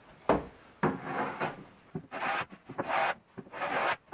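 No. 4 hand plane taking a quick series of short strokes along the edge of a plywood panel, shaving off the saw marks; a few strokes start with a sharp knock.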